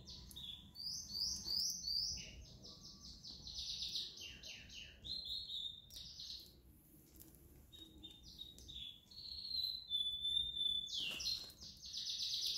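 Small birds chirping: runs of quick high chirps and short falling notes, a held high whistle near the end, then a fast continuous trill.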